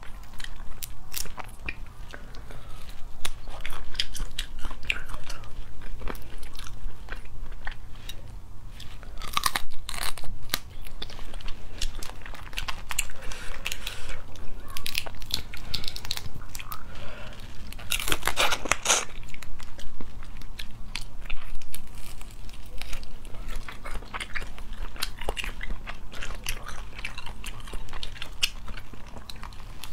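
Cooked crayfish shells cracking and crackling as they are pulled apart by hand, mixed with close-up chewing. A denser, louder run of cracks comes about eighteen seconds in.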